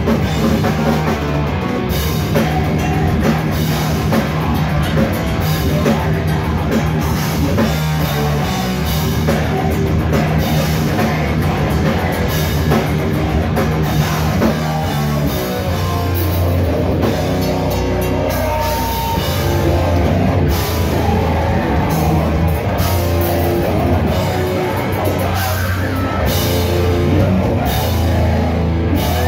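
A live heavy metal band playing loud: distorted electric guitar and bass over a drum kit, with a vocalist shouting into the microphone. About halfway through the riff drops into lower, heavier bass notes.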